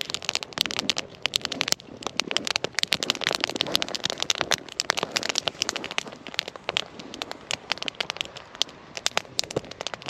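Split firewood burning in a metal fire pit, crackling with many irregular sharp pops.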